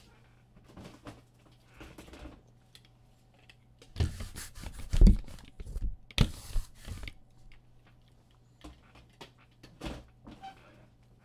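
Trading-card packs being handled on a table: crinkling wrapper noise and soft knocks and clicks, busiest in the middle with two short bursts of crinkling and sharp knocks.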